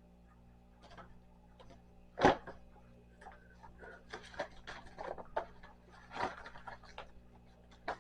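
Objects handled on a desk: one sharp knock a little over two seconds in, then a run of small clicks and rustling, over a steady low hum.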